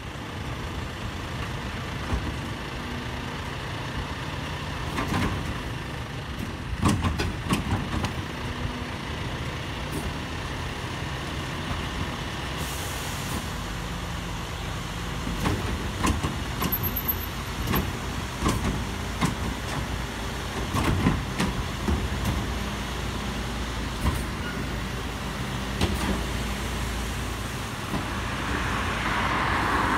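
Rear-end loader garbage truck working at the kerb: its engine runs steadily under a string of clanks and knocks from the rear bin lifter handling a wheeled bin, with a short hiss about thirteen seconds in.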